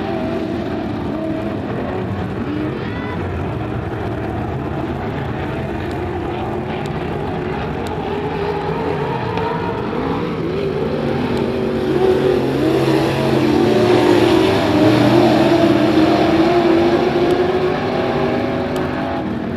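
A pack of dirt-track modified race cars running at speed around the oval, several engines overlapping and rising and falling in pitch as they rev through the turns. It grows louder about twelve seconds in as the cars come closest, then eases off.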